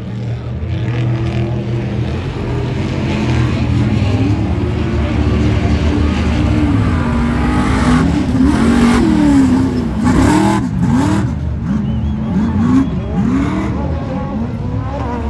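Off-road race trucks' engines revving hard as they drive through the dirt course, the pitch sweeping up and down over and over as they accelerate and back off, over a steady engine drone.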